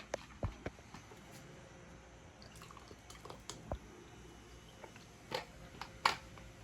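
Small handling noises: scattered clicks and taps, with two short swishing sounds near the end.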